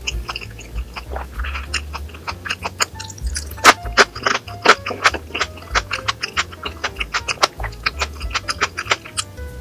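Background music with a steady bass line under many sharp close-up clicks and smacks of eating: chewing and utensils.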